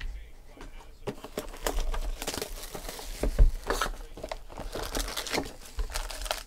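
Foil-wrapped Panini Prizm football card packs and box wrapping crinkling as a card box is opened by hand and the packs are pulled out. The crackling is irregular and starts about a second in, with its loudest crackle a little past the middle.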